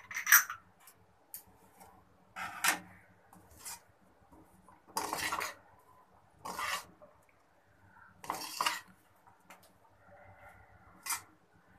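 Metal spatula scraping and clanking against a large metal karahi as a dry stir-fried noodle and cabbage filling is tossed, in separate strokes every second or two.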